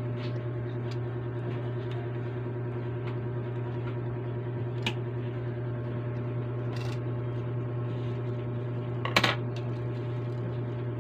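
A steady low electrical hum, with a faint click about five seconds in and a louder short rattle of clicks a little after nine seconds as hard plastic model-kit parts are handled and pulled apart.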